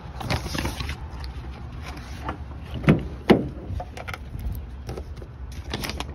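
A 2003 Dodge Ram pickup's door being opened: the outside handle is pulled and the latch releases with two sharp clunks a fraction of a second apart, with smaller clicks of handling before and after, over a steady low rumble.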